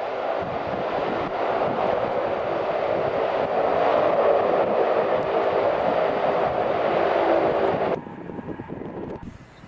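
Antonov An-12's four turboprop engines running at high power on the runway: a loud, steady drone with a hum of several steady propeller tones. It cuts off abruptly about 8 seconds in, leaving a much fainter sound.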